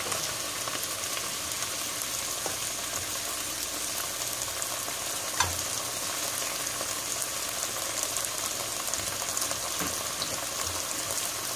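Chopped bell peppers, onion and tomato frying in oil in a pot, a steady sizzle, with one short click about five seconds in.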